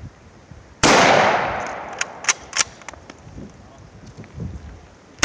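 A blank .30-06 round fired from an M1903 Springfield bolt-action rifle about a second in, the report echoing away, followed by a few sharp metallic clicks as the bolt is worked to chamber the next round, and a second shot right at the end.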